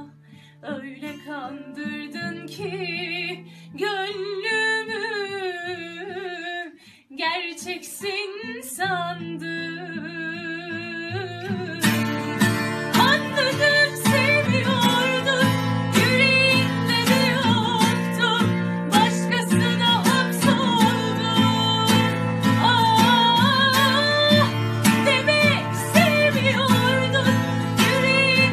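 A woman singing a slow Turkish song with a wavering vibrato, accompanied by acoustic guitar. The accompaniment is sparse and quiet at first, then about twelve seconds in it turns into a fuller, louder strummed rhythm under the voice.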